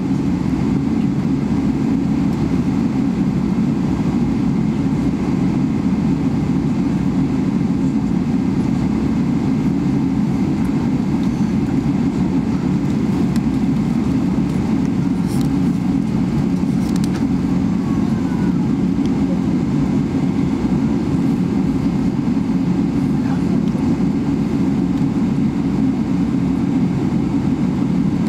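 Steady, even low rumble of a Boeing 777-300ER aircraft, unchanging in level or pitch throughout.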